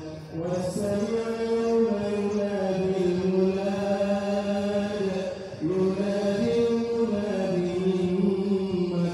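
A voice chanting in long, slowly shifting held notes, with a short break about five and a half seconds in.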